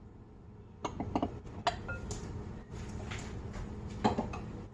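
Kitchenware clinking and tapping: a small ceramic bowl and utensils knocking against a glass mixing bowl, in a few clusters of sharp clicks about a second in, near two seconds with a brief ring, and again near four seconds.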